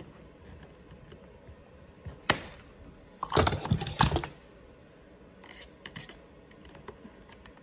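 A sharp click about two seconds in, then a cluster of clicks and rattles a second later and a few faint ticks near the end: a chainsaw's throttle lever being compressed and popped up out of its bracket in the handle.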